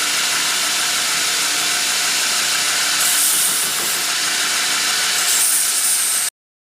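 Shop-made power grinder running, with small cast-metal flask clips being ground on it to clean them up. It makes a steady hiss that grows brighter twice as the work is pressed on, then cuts off suddenly near the end.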